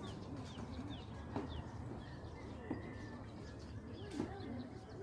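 Morning birdsong: many small birds chirping in short falling notes, several a second, with lower, slower calls beneath. Two brief sharp ticks stand out, about a second and a half in and near the end.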